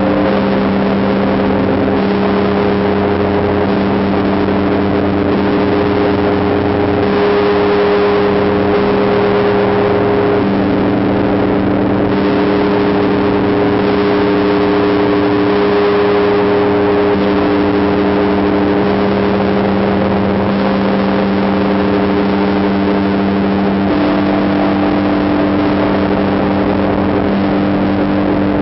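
The Tsar Bell of the Trinity-Sergius Lavra bell tower, a 72-tonne Russian Orthodox church bell, ringing: a loud, continuous wash of deep, lingering tones that overlap and shift now and then without ever dying away.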